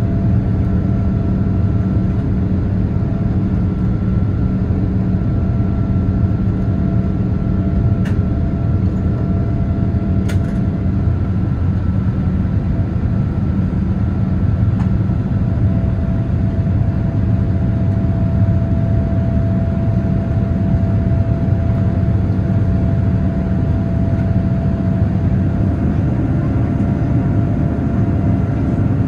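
Steady cabin noise inside a Boeing 787-9 airliner: a low rumble of engines and airflow with a few steady hums on top, and a couple of faint clicks.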